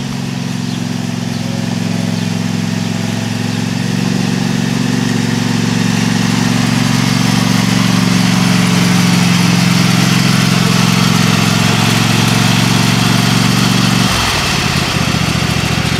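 Craftsman DGT6000 garden tractor's Kohler engine running steadily under way, growing louder as it comes close. About two seconds before the end it drops abruptly to a lower, slower running speed.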